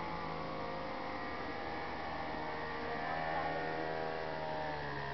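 Engine and propeller of a powered paraglider trike flying overhead: a steady drone whose pitch drifts slowly down and up again as it passes, a little louder around the middle.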